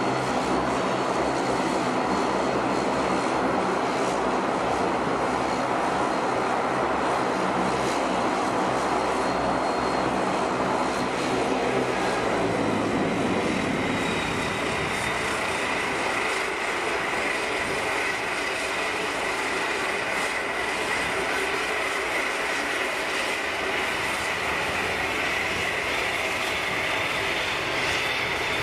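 Boeing 737-800's CFM56-7B turbofan engines running at takeoff power during the takeoff roll: steady jet engine noise with a high whine. About halfway through the deep rumble drops back and a higher fan whine comes forward.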